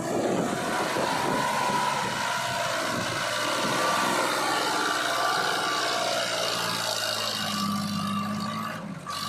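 Diesel engine of heavy farm or earthmoving machinery running steadily, with a deeper engine note coming in near the end.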